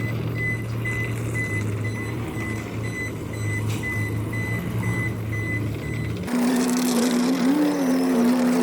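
Steady low electric hum with a high beep repeating about twice a second. About six seconds in it cuts to a small electric motor running with a steady whine that wavers briefly.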